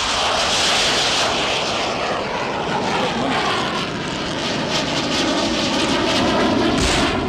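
Aircraft flying low overhead: loud, steady engine noise whose whine slowly falls in pitch.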